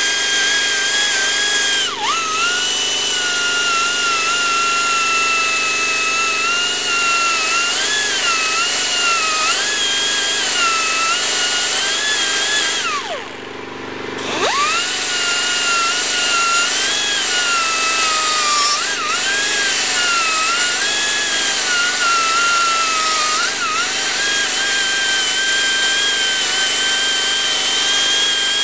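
Pneumatic air tool with a cookie-type sanding wheel whining at high speed as it grinds through plastic, its pitch sagging and wavering as it is pressed into the cut. About halfway through it spins down and stops briefly, then winds back up and carries on grinding.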